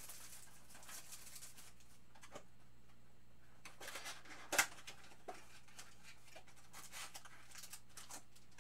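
Hands opening cardboard trading-card boxes and handling the wrapped packs: scattered rustles, taps and scrapes of cardboard and foil, the sharpest about four and a half seconds in.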